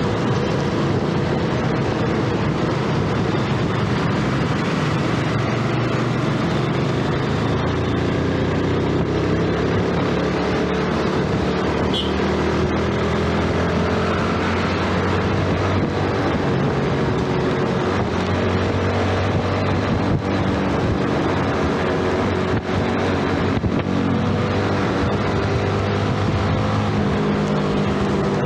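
Yamaha underbone motorcycle's single-cylinder engine running on the move. Its pitch rises as the bike speeds up between about six and fourteen seconds in, then holds fairly steady. Underneath is a steady hiss of tyres on wet road and wind.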